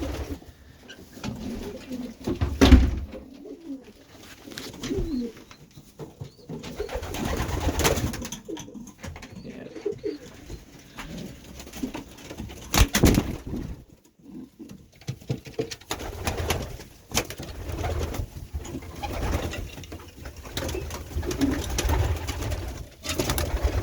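Racing pigeons cooing in a loft, low repeated coos, with a few loud sharp sounds, the strongest about three seconds and thirteen seconds in.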